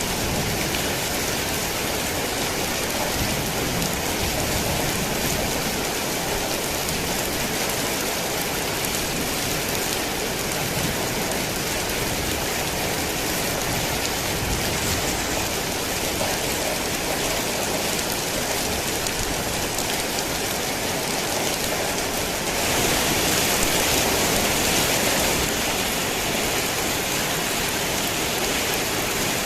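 Heavy rain falling steadily, swelling louder for about three seconds shortly before the end.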